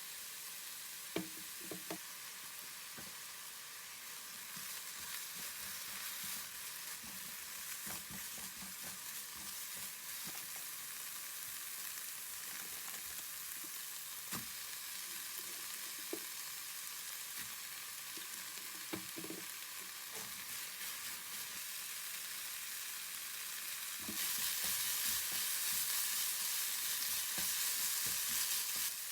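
Food sizzling and frying in a pan, with occasional short knocks of a utensil against the pan. The sizzle gets louder near the end.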